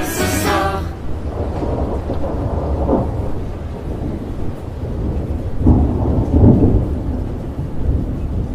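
Thunderstorm: low rolling thunder over steady rain, with louder rolls about three seconds in and again past the middle. The last notes of music stop about a second in.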